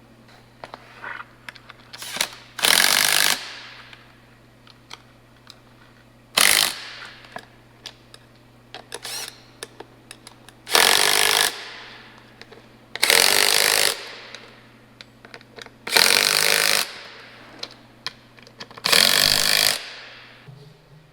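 Impact wrench run in about seven short bursts of under a second each, with pauses between, loosening mud-flap bolts on a truck. A faint steady low hum lies underneath.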